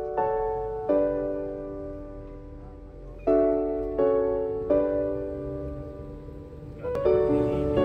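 Slow background piano music: chords struck every second or so, with longer gaps, each left to ring and fade. A low steady rumble runs underneath.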